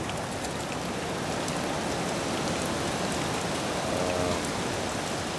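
Hurricane rain driven by gusting wind: a steady, even hiss of heavy rain. A short voiced sound from a person comes about four seconds in.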